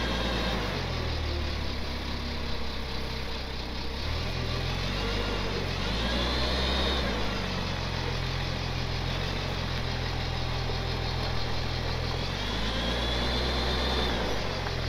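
Forklift engine running under load with a pickup truck up on its forks, its revs stepping up and down. A high whine swells and fades twice, about six and thirteen seconds in.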